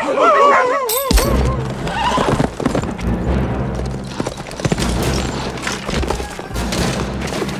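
A horse whinnies with a wavering, quavering pitch, then from about a second in its hooves gallop under orchestral film score.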